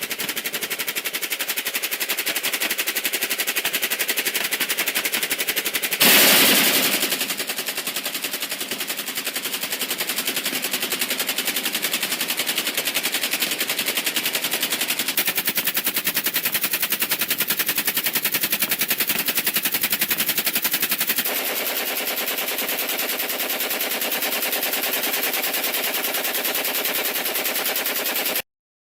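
Machine gun firing in sustained automatic fire, a rapid, even rattle of shots, with one louder blast about six seconds in. The fire changes tone a couple of times and cuts off suddenly near the end.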